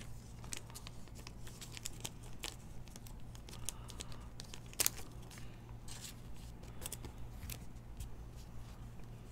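2020 Panini Elite football trading cards being handled and flipped through by hand, the cards sliding and snapping against one another in light, scattered clicks and crinkles, with two sharper clicks a little before the middle. A steady low hum runs underneath.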